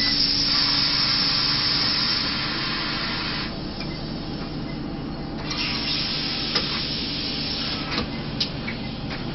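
Scania OmniLink city bus idling at a standstill, heard from inside the cab: a low engine hum under a steady hiss that drops away for about two seconds in the middle, with a few light clicks near the end.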